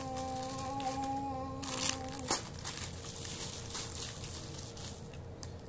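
Plastic snack packaging crinkling as it is handled, with scattered clicks. A steady hummed note runs underneath and stops a little over two seconds in.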